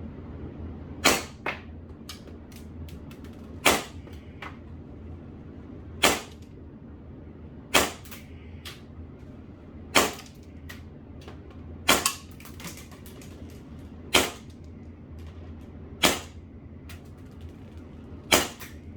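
Tokyo Marui Series 70 1911 gas blowback airsoft pistol firing on green gas: nine single shots, each a sharp crack, about two seconds apart, with fainter clicks between some shots.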